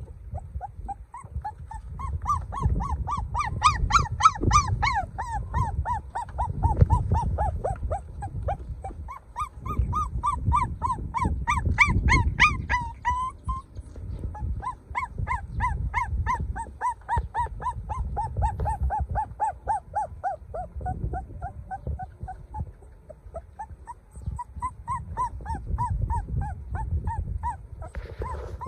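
A puppy crying: a long run of short, high whimpering cries, several a second, each rising and falling in pitch, broken by a few brief pauses.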